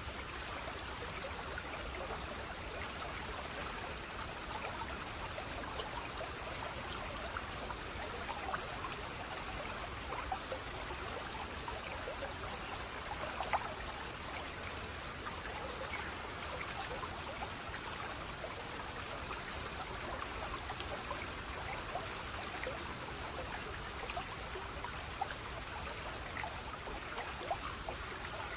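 Steady flowing, trickling water, with small splashes and drips scattered through it.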